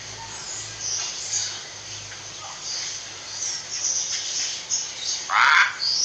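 Hill myna calling: faint high chirps, then a loud call of about half a second near the end.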